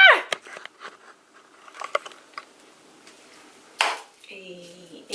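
Faint scraping and clicking handling sounds in a small room, with one sharp click about four seconds in; just after it a woman starts humming a tune.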